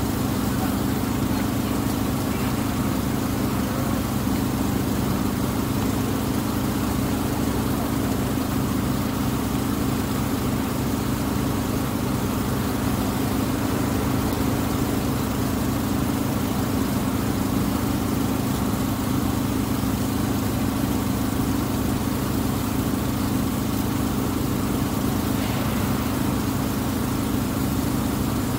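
A water bus's engine running steadily, heard on its deck: one unbroken low drone that holds the same pitch and level throughout.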